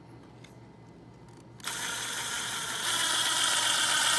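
Cordless drill running, driving a self-tapping screw through a plastic flap into a bike frame. The whir starts suddenly about a second and a half in and grows louder about a second later.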